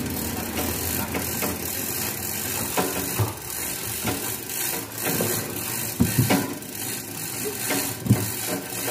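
Heavy speaker cabinets thumping and knocking as they are carried, set down and shoved into place, several times, the loudest knocks about six and eight seconds in. A steady engine hum runs underneath.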